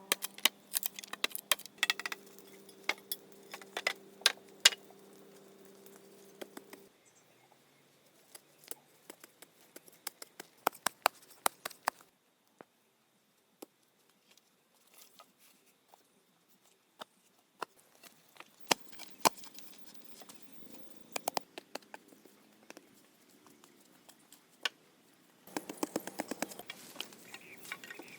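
Irregular sharp taps and knocks, with a steady buzz that stops about seven seconds in, and a quick flurry of clicks near the end.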